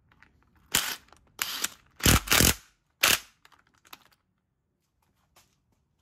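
Power tool running in four short bursts, the third the longest and loudest, as bolts are driven into a Honda Civic manual transmission case. A few faint clicks follow.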